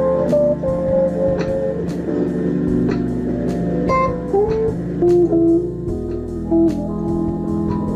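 Instrumental music: an electric guitar plays a bending, gliding melody over sustained keyboard chords and a bass line that changes every couple of seconds, with a steady light tick keeping time.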